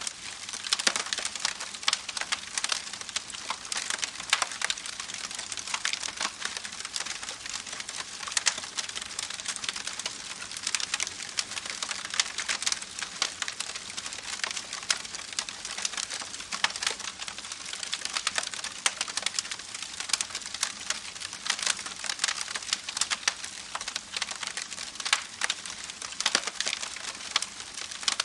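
Falling water pattering continuously: a dense, irregular crackle of many small drop impacts over a steady hiss, with little low end.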